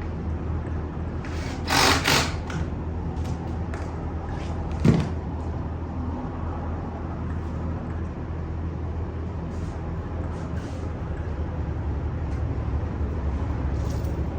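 Steady low machine hum, with a short scraping rustle about two seconds in and a single knock about five seconds in, as parts of a chair being assembled are handled.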